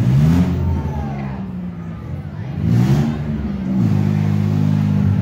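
Demolition-derby minivan engines revving hard as the vans push against each other, the pitch climbing about half a second in and again near three seconds in, then dropping back to a steady run.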